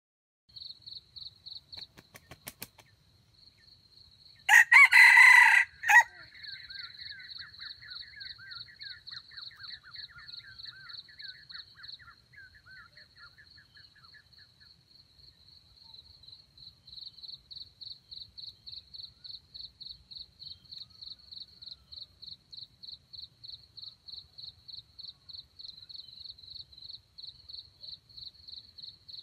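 A rooster crows once, loud and short, about four and a half seconds in. A softer, falling trill follows for several seconds, over a high insect chirp pulsing steadily about three times a second.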